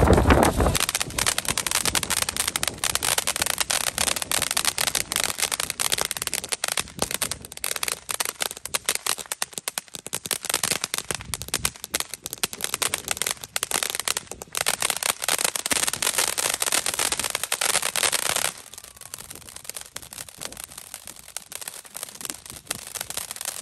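Ground firework spraying sparks with a dense, continuous crackle and hiss. About 18 seconds in it suddenly gets quieter and keeps crackling more softly.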